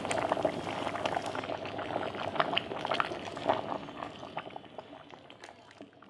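Liquid boiling: a steady bubbling with many irregular pops, gradually fading away over the second half.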